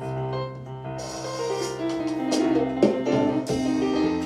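Keyboard playing held chords, with a few drum and cymbal hits about midway through.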